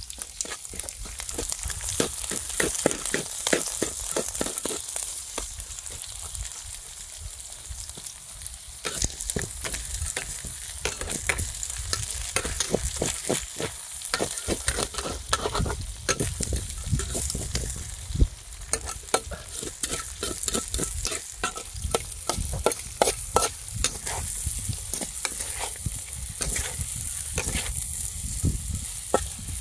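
Rat meat sizzling as it fries, with frequent scraping clicks from being stirred.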